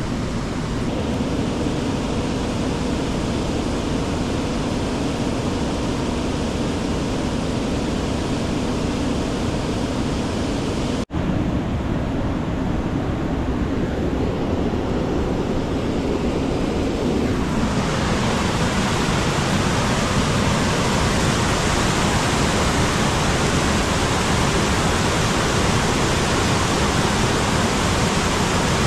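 A creek waterfall swollen after two days of rain, rushing steadily and loudly. The sound cuts out for an instant about a third of the way in. About two-thirds through, the rush turns brighter and hissier.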